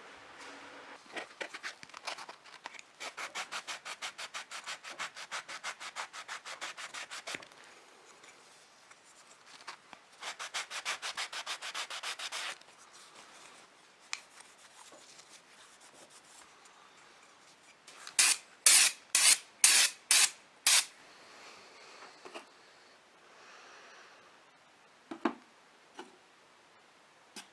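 Hand abrasion of a surface, such as sanding or scraping, in quick back-and-forth rubbing strokes. There are two runs of fast strokes, about eight a second, then six louder, slower strokes about two a second, and a couple of faint knocks near the end.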